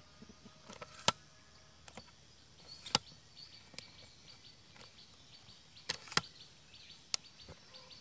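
Quiet rural outdoor ambience with faint, rapid, evenly repeated high chirping from about three seconds in, broken by five sharp clicks, which are the loudest sounds.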